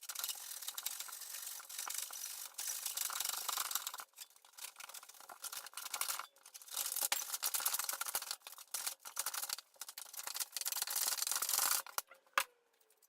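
Dry rasping of a hand tool working wood, in long stretches broken by short pauses.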